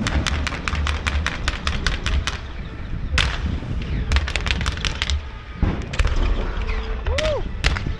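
Fireworks going off in rapid runs of sharp bangs and cracks, several a second, with short pauses between the runs and a low rumble underneath. A brief rising-then-falling whistle comes about seven seconds in.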